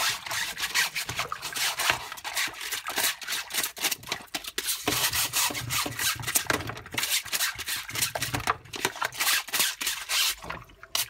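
Rapid, irregular scrubbing strokes on the wet mesh shroud of a Dyson DC41 cyclone assembly, a raspy rubbing sound. It pauses briefly about five seconds in and dies away near the end.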